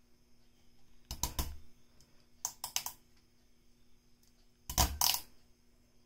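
Three short bursts of clicking and rattling, the first about a second in and the others roughly a second and a half apart, the last the loudest. The first and last come with a dull knock, over a faint steady hum.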